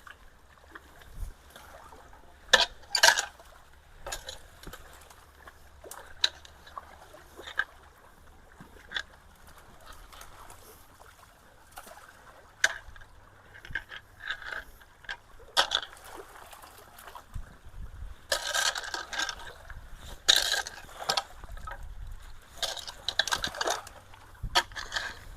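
Water trickling and splashing at a clogged culvert, with several sharp splashes or knocks and a few longer bursts of splashing.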